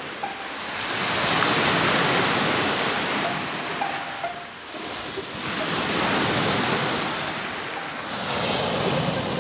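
Sea surf breaking on a pebbly shore: the rush of water swells and falls back three times, a few seconds apart.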